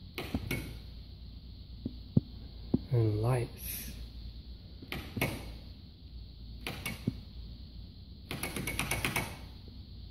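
Footsteps on a hard tiled floor in a large empty room, with a short wavering vocal hum about three seconds in and a quick rattling run of clicks near the end.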